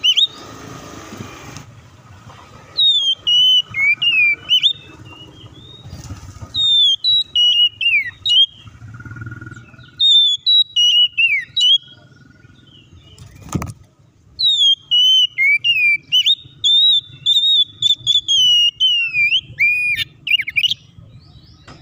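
Oriental magpie-robin (kacer) singing: loud whistled phrases that sweep up and down in pitch, in several bouts broken by short pauses, the longest run in the second half. A single sharp click about halfway through, over a faint low background rumble.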